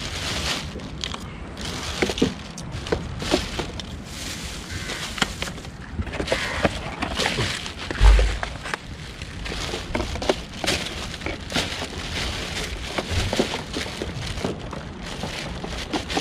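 Plastic bags rustling and crinkling as they are handled, a run of short irregular crackles over a low steady rumble, with one dull thump about halfway through.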